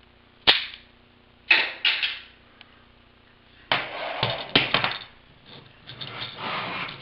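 Plastic snaps, knocks and rattling from a K'nex crossbow being handled: one sharp snap about half a second in, two knocks a second later, then two longer stretches of clatter.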